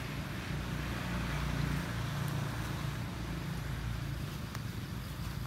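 Steady low background rumble with a faint even hiss.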